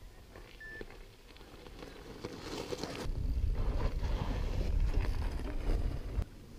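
Mountain bike riding downhill: wind rushing over the action camera's microphone, mixed with rattling and knocks from the tyres and frame on the trail. The noise builds from about two seconds in and drops away suddenly near the end.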